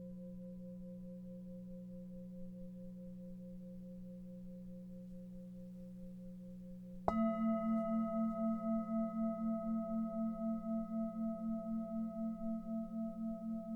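Tibetan singing bowls ringing: a long, fading hum, then about halfway through a bowl is struck and rings on with several tones, its sound pulsing in a steady waver as it slowly decays.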